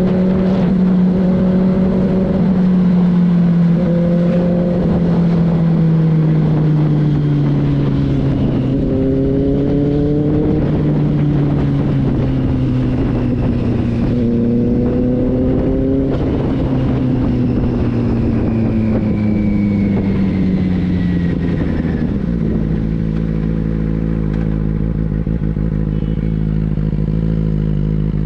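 Benelli 600i inline-four motorcycle engine under way, its note climbing and dropping several times as it is revved through the gears. About 22 seconds in it settles into a steady lower note.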